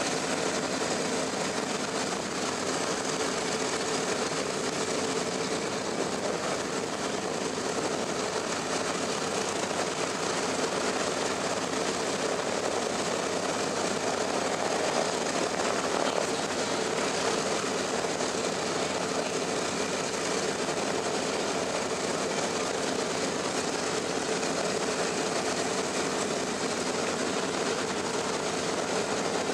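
Radial piston engines of a WWII bomber running steadily: an even drone with a constant tone through it.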